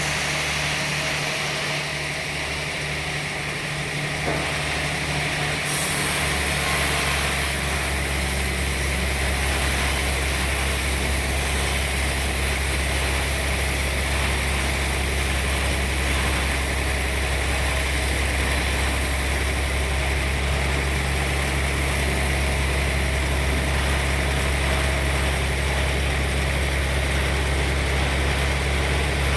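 Sawmill machinery running steadily with a low, even drone that strengthens about six seconds in and then holds.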